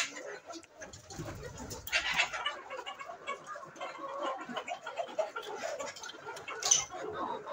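A flock of Fayoumi chickens clucking and calling in a steady jumble, with louder bursts about two seconds in and near the end.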